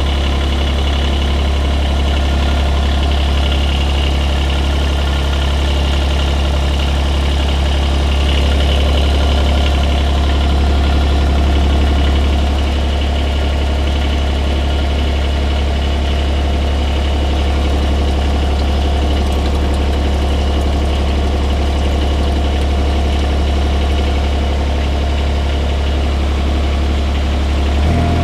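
Kubota U17-3 mini excavator's three-cylinder diesel engine idling steadily, run after a hydraulic oil change to warm the fresh oil and bleed air from the hydraulic system.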